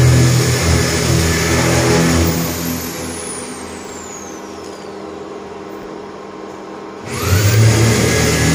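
A steady engine-like machine hum. It fades down after about two seconds, a thin falling whistle runs through the quiet stretch, and the hum comes back abruptly about seven seconds in.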